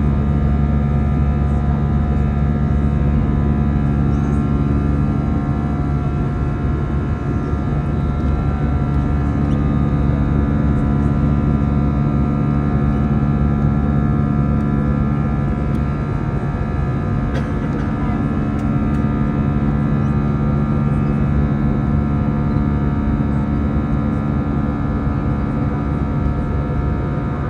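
Airbus A320 turbofan engine heard from inside the cabin near the wing during the climb after takeoff: a steady, unbroken jet drone with a low rumble and several steady tones over it.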